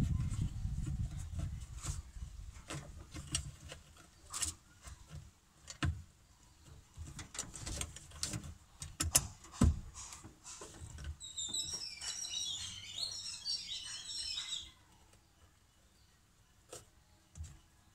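Scattered clicks and knocks of a rubber air-cleaner hose being worked by hand onto a motorcycle carburettor's intake. A low rumble comes at the start. Birds chirp for a few seconds past the middle.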